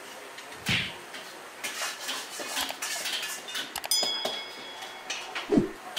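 Scattered clinks and knocks of dishes, utensils and pans in a busy restaurant kitchen, with a couple of dull thumps. About four seconds in, a few quick clicks are followed by a short bright ringing tone.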